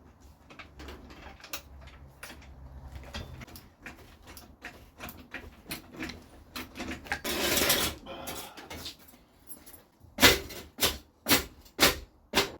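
Metal tools and parts being handled in a garage: scattered clinks and knocks, a short rustling burst about midway, then five sharp knocks about half a second apart near the end.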